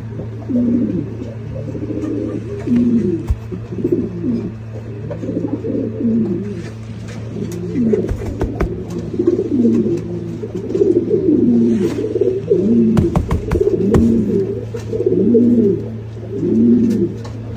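Several domestic pigeons cooing, their repeated coos overlapping, over a steady low hum. A few sharp knocks come about 8 seconds in and again around 13 seconds.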